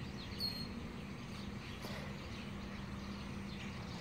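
Faint outdoor ambience: a steady low hum with a single short, high bird chirp about half a second in.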